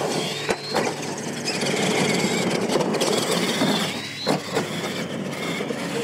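Radio-controlled monster trucks racing: a steady whine of motors and gears, with short rising glides as the throttle opens, and sharp knocks as they bounce over and land off a dirt jump, twice in the first second and once about four seconds in.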